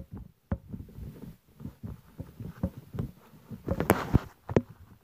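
Slime being poked and squished by hand: a run of irregular small wet clicks and pops, with a longer squelching burst a little before the end.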